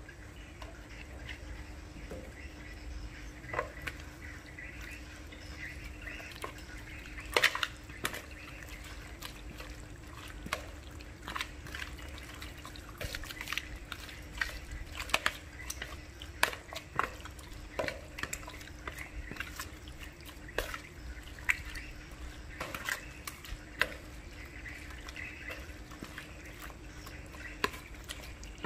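Raw squid being squeezed and turned by hand in a wet marinade in a plastic bowl: irregular wet squelches and sharp little clicks, with a faint steady hum underneath.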